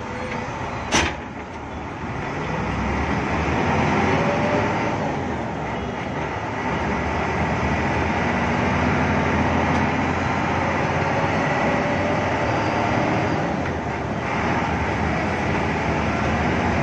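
Hino AK8 bus's turbodiesel engine pulling away and accelerating, heard from inside the cabin with the hiss of rain and wet road; its pitch climbs and drops back around two gear changes. A sharp click about a second in.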